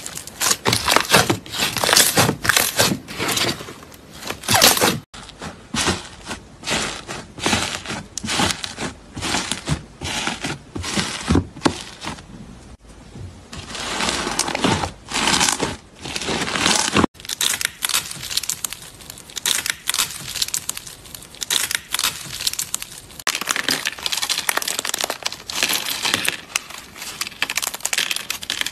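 Slime worked by hand, in dense runs of sticky clicks and crackles that change abruptly twice: first bubbly slime stretched and pulled, then blue cloud slime kneaded, and from about seventeen seconds in a hardened green shell over the slime cracking and crumbling under the fingers.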